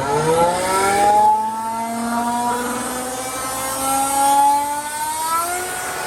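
Atlas Copco GA37 rotary screw airend driven by a 50 hp Siemens electric motor, just switched on: it spins up with a rising whine over the first second or so, then runs steady.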